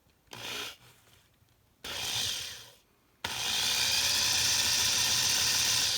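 Electric drill with a 9/64-inch bit drilling out the rivet of a die-cast toy car. It runs in three goes: a short blip, a run of about a second, then a long steady run, with only the drill's own weight pressing the bit in.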